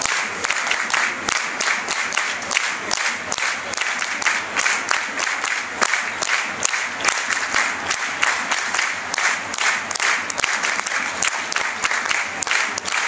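A large crowd of football supporters in the stands clapping, with many voices singing and shouting together.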